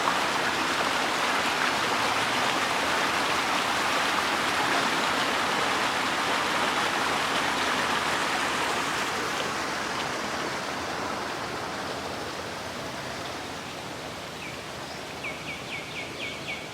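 Steady rush of flowing river water, fading away over the last several seconds. Near the end comes a quick run of about six high chirps.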